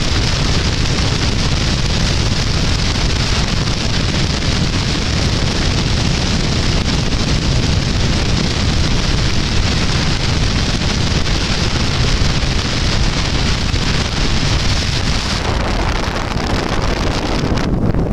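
Meteor-type hydrofoil running on its twin diesel engines: a steady low rumble under loud rushing water and wind noise on the microphone.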